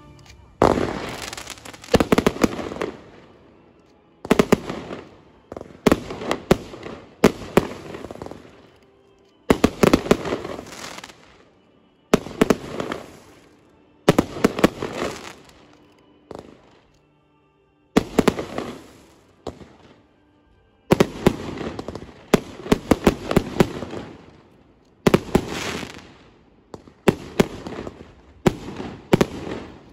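Fireworks display: volleys of sharp bangs from bursting shells and comets every second or two, each trailing off in crackle, with a short lull partway through.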